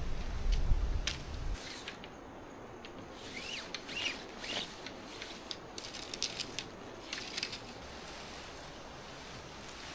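Intermittent rustling and scattered light clicks from handling, with a low rumble in the first second and a half.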